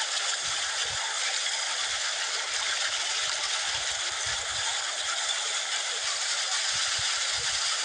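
Shallow stream water rushing and splashing steadily through a stone fish-trap wall and its spout.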